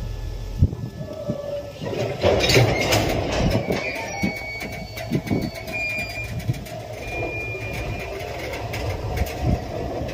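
Train rolling slowly along the station track during shunting, its wheels clacking over rail joints and points, with a few brief high wheel squeals.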